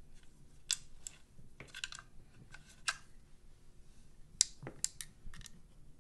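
Irregular light clicks and taps, a dozen or so, the sharpest about four and a half seconds in, from hands feeding a bore snake's cord into the chamber of an AR-style rifle.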